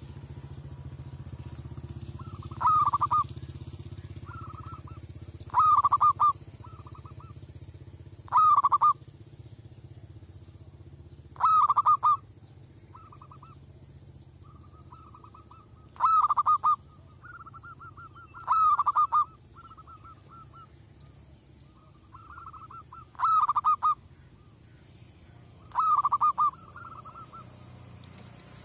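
Zebra dove (merbok) cooing: eight loud bursts of rapid staccato coos a few seconds apart, each trailing into a run of softer quick notes. A steady low rumble sits underneath.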